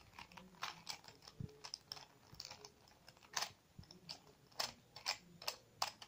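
Plastic 3x3 puzzle cube being twisted by hand: faint, irregular clicks and clacks as its layers turn, a few louder snaps in the second half.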